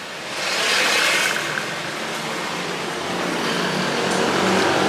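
Road traffic passing close by on a street: a vehicle rushes past about a second in, then a steady engine hum grows louder near the end as another vehicle approaches.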